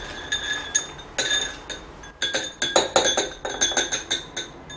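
Peas pouring out of two small glass jars into a bowl: clicking and rattling of peas against the glass and the bowl. A few scattered clicks at first, then a dense rapid run from about halfway in.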